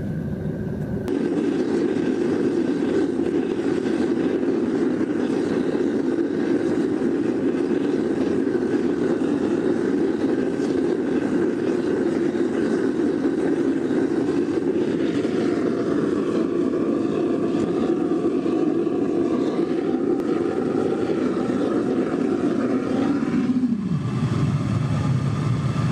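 Gas burner of a homemade aluminum-melting foundry furnace running steadily. Its tone shifts about halfway through, and the low part of the sound drops away near the end.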